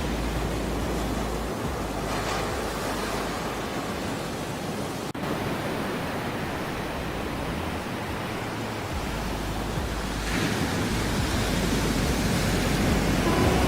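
Ocean surf: waves washing in as a steady rushing noise, with a momentary break about five seconds in and a swell as a wave builds from about ten seconds in.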